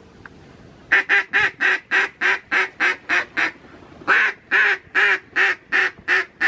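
Duck quacking in two long runs, about a dozen quacks and then about eight. In each run the first quacks are the longest and the later ones come quicker.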